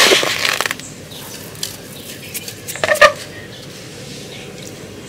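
Coarse rock salt scooped by hand from a plastic basin and scattered into an earthenware jar, the grains rustling and ticking, with one sharp knock about three seconds in.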